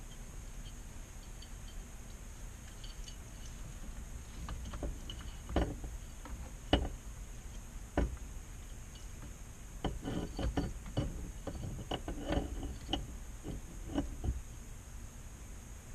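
Light clicks and knocks of the steering wheel hub parts being handled and fitted onto the steering column, scattered irregularly through the middle with a busier run near the end, over a steady faint background hum.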